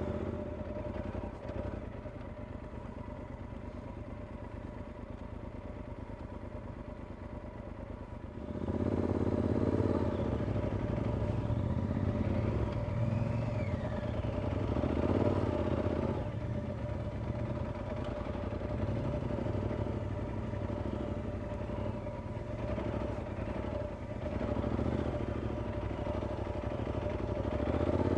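Adventure motorcycle's engine running as it is ridden along a deep-sand dirt road, with clattering from the bike. It is steady and fairly quiet at first, then louder and more uneven with throttle surges from about eight seconds in.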